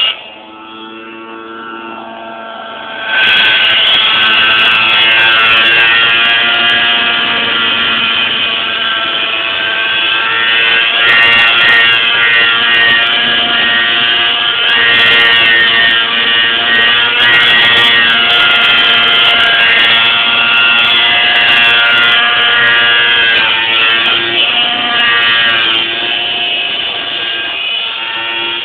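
Radio-controlled model helicopter in flight, its motor and rotors giving a whine with several tones that waver up and down in pitch. It is fainter for the first few seconds, then suddenly gets louder about three seconds in and stays loud.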